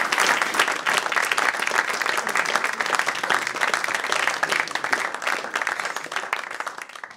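Audience applauding, the clapping slowly dying away towards the end.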